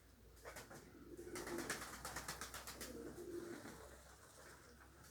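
Domestic pigeons cooing, two low wavering coos about a second and three seconds in, with a short rapid rustling burst between them.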